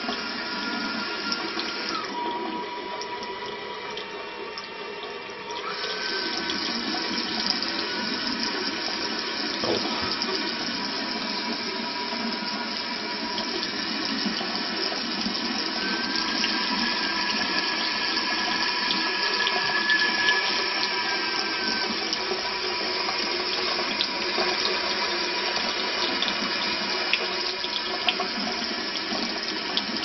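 Tap water running steadily from a faucet aerator into a ceramic washbasin and splashing down the drain. The flow goes quieter about two seconds in and picks up again near six seconds, with a thin whistle in the stream that shifts pitch a few times.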